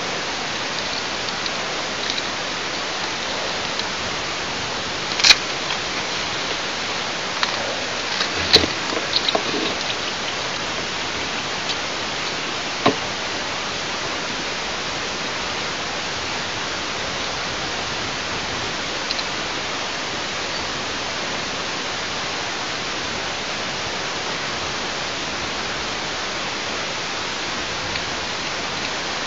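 Steady hiss from a nest camera's microphone, broken by a few sharp knocks and rubs as a gloved hand handles the camera. The loudest knocks come about five and eight seconds in, with a last one about thirteen seconds in.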